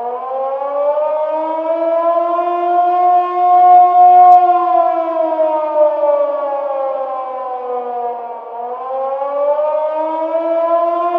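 A siren wailing loudly: its pitch holds high for a few seconds, falls slowly to a low about three quarters of the way through, then rises again.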